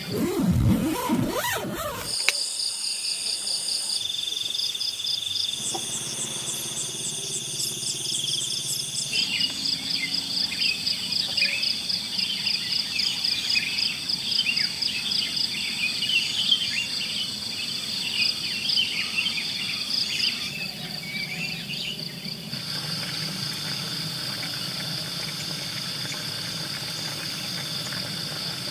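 Insects chirping in a steady, high, pulsing chorus, with many short chirping calls over it through the middle stretch. A loud low rumble fills the first two seconds, and the mix changes abruptly several times.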